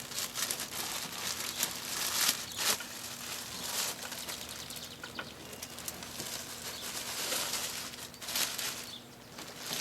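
Plastic bubble wrap and packing foam rustling and crinkling in irregular handfuls, with a few sharper crackles, as a telescope wedge is unpacked from its packing.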